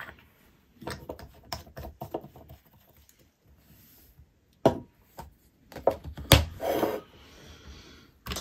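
Handling noises on a wooden workbench: a run of small clicks and rubs, then two sharp knocks past the middle, the second followed by a brief scraping rub.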